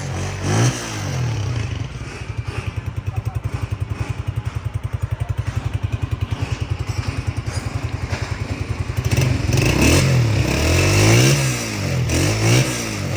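Honda CG125's single-cylinder four-stroke engine, blipped briefly, then idling with an even, rapid beat. From about nine seconds in it is revved up and down over and over.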